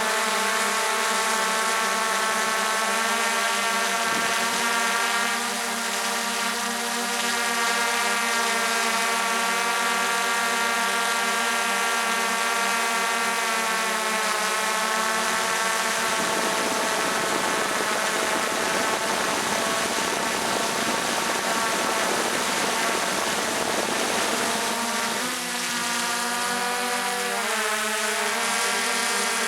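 Drone motors and propellers running with a steady, many-toned hum, the pitch shifting as the throttle changes about 25 seconds in, over a steady hiss.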